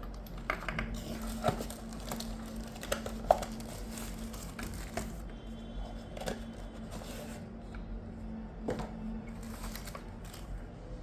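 Paper documentation and cardboard packaging being handled, with soft rustling and scattered light clicks and taps, over a steady low hum.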